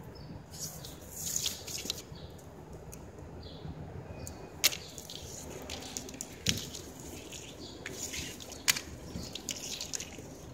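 Synthetic wicker strand being handled and tucked into a chair arm's weave: light rustling and scraping of plastic with scattered small clicks, and three sharper clicks about two seconds apart.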